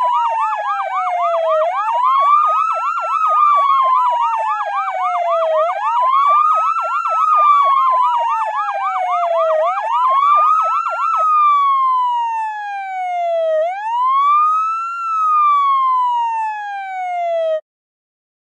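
Electronic siren wailing: a tone rising quickly and falling slowly about once every four seconds. A rapid yelping warble overlaps it for the first two-thirds, then the wail continues alone and cuts off abruptly near the end.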